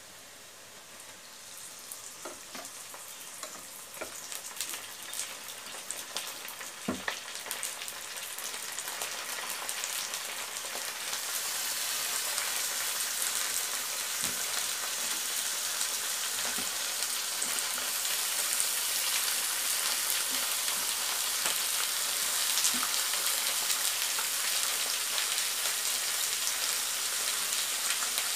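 Raw beef pieces frying in hot oil with browned onions in a nonstick wok, the sizzle growing louder over the first several seconds as the meat goes in and then holding steady. A few knocks and scrapes of the spatula against the pan as the meat is stirred.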